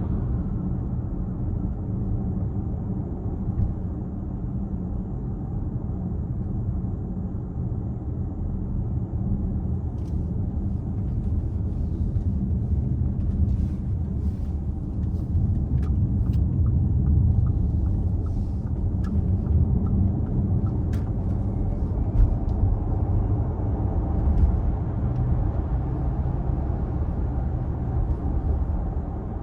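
Cabin noise of an Audi Q4 e-tron electric SUV driving above 55 mph: a steady low road rumble, carrying the faint droning, buzzing vibration the owner hears coming and going from the front of the car, with no cause yet found. A few light clicks come in the middle.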